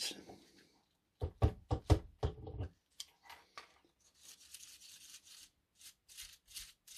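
Hands working small parts of a model truck gearbox: a quick cluster of sharp clicks and knocks about a second in, then a run of short scraping strokes, about three a second.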